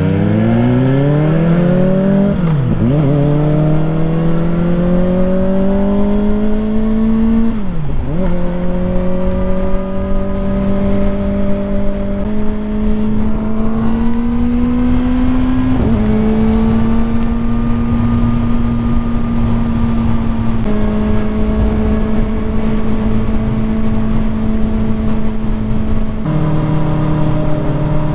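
Kawasaki Ninja ZX-4RR's 399 cc inline-four accelerating hard. The pitch climbs steeply, dropping sharply at quick upshifts about three and eight seconds in. After that it holds a steady high-revving pull, with small rises and drops in pitch as the throttle and gears change.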